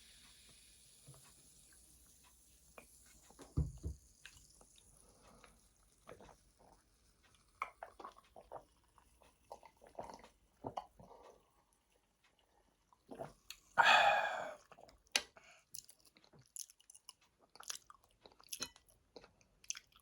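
Close-miked mouth sounds of eating Chapagetti instant black-bean noodles: irregular wet chewing and smacking clicks, with one louder, longer noisy mouthful about two-thirds of the way through and a low thump near the start.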